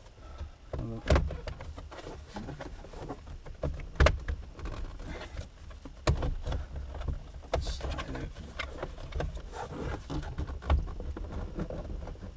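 Plastic steering-column surrounds being worked off by hand: scattered clicks, knocks and creaks as the trim's clips snap apart, with sharper knocks about a second in and again around four and six seconds.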